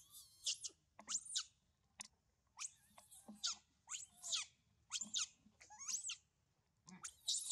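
Baby macaque screaming in distress while an adult macaque grabs and drags it by the tail: a string of short, high-pitched squeals, roughly one a second, each arching or falling in pitch.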